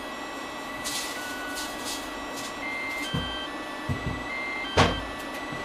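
Makita XGT rapid chargers' cooling fans running steadily, while a charger sounds a series of short, high electronic beeps from about two and a half seconds in, signalling that a battery has finished charging. A single sharp knock about five seconds in is the loudest sound.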